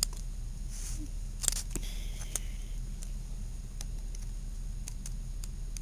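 Metal binder clips clicking as they are handled and clamped onto a wooden fingerboard deck, with a short scrape just after the loudest click about a second and a half in, then a few lighter ticks.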